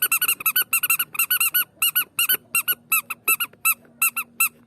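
A rapid run of short, high-pitched squeaks, about six a second in quick clusters, each one a brief rise and fall in pitch, starting abruptly. A faint steady hum underlies the second half.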